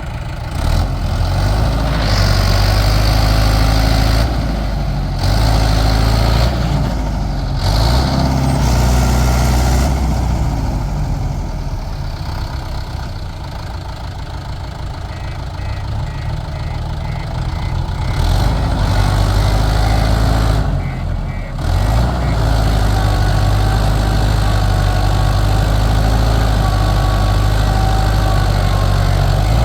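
Heavy diesel machinery engine running, its load and speed rising and falling, with several abrupt breaks in the sound.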